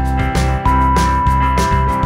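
Background music with a steady beat, its notes held over a pulsing rhythm.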